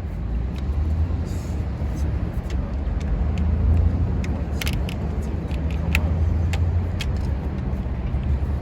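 Steady low rumble of a motor vehicle engine running, with scattered light metallic clicks of hand tools on metal.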